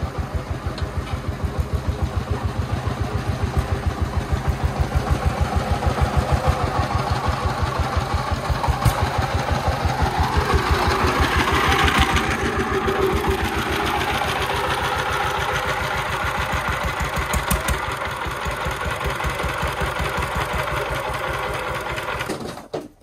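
Single-cylinder diesel engine of a homemade three-wheeled công nông dump truck chugging steadily at several beats a second as it drives along loaded with rocks, the engine noise rising for a few seconds around the middle. The sound cuts off abruptly shortly before the end.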